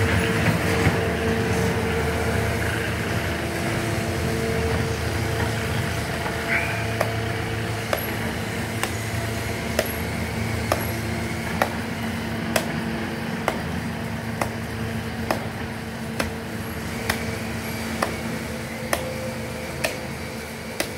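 A long-handled digging tool struck down hard into the ground at the edge of the slab, about once a second from about seven seconds in, each hit a sharp chop; it is hitting something hard that the homeowner guesses is old buried curb. A steady engine hum runs underneath.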